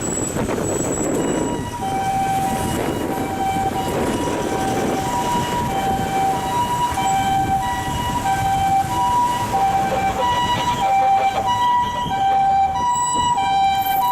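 Japanese ambulance siren sounding its two-tone hi-lo call, switching between two notes about every half second, starting about two seconds in and growing slightly louder toward the end, over a steady rushing background noise.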